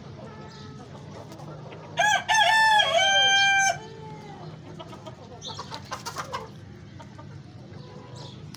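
Australorp rooster crowing once, loud and under two seconds long, about two seconds in, followed by a few short clucks from the flock.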